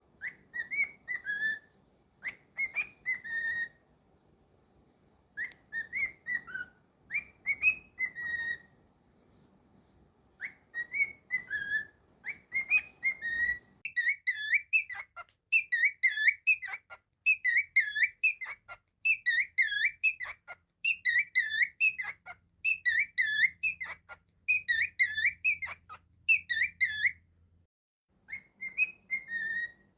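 Cockatiel whistling a tune in short phrases of rising and falling notes with brief pauses, then a long run of quick swooping notes repeated over and over, before breaking off near the end.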